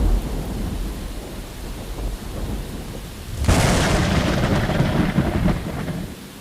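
Thunder sound effect: a low rumble dying away, then about three and a half seconds in a sudden sharp crack of thunder that rolls on as a rumble for about two seconds before fading.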